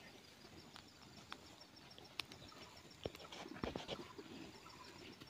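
Quiet outdoor ambience with a few soft knocks and scrapes a little past the middle, as a rope cattle tether is handled on the ground; a faint high ticking runs steadily underneath.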